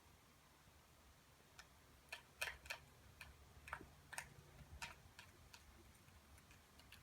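About a dozen faint, sharp clicks at irregular intervals through the middle few seconds, over near silence.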